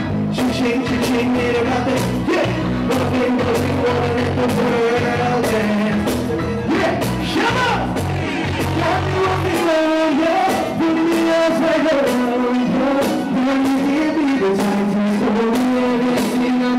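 Live performance over a PA: a man's vocal into a microphone over a backing beat with regular drum hits and held melodic notes. The heavy bass line drops out about ten seconds in.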